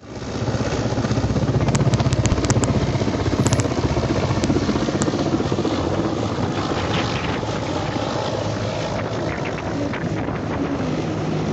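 Mi-17 military helicopter's rotor beating and engines running close by as it hovers and then flies off, with wind buffeting the microphone. Loudest in the first few seconds, then a little fainter as it moves away.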